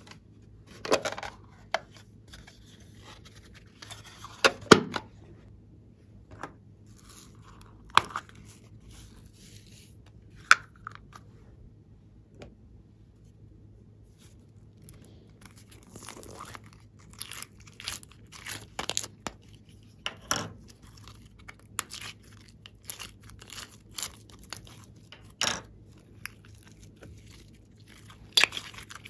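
Hands working plastic toy cases and a clear plastic pouch of glitter slime: irregular sharp plastic clicks, crackles and crinkles, sparse at first and coming thicker in the second half.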